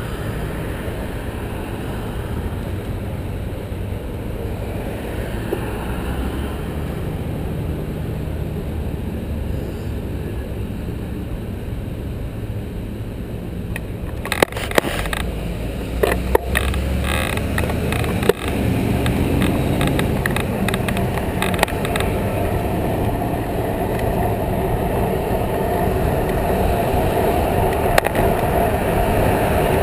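Road traffic rumbling past at an intersection, then a burst of sharp clicks and rattles as the bicycle sets off, followed by a steady rush of wind and tyre noise that grows as it picks up speed on a road with cars ahead.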